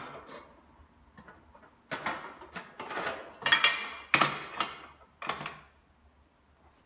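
Stainless steel workpiece and metal parts clanking against a steel welding table as they are picked up and set down: about five sharp metallic clacks with brief ringing, the loudest two a little past the middle.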